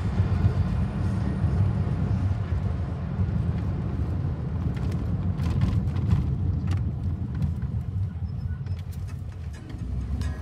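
Car interior noise while driving: a steady low rumble of engine and tyres on the road, with a few sharp clicks or rattles about five to seven seconds in.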